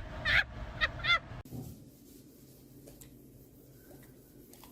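A pet animal giving a few short, high-pitched cries in the first second and a half, then near quiet.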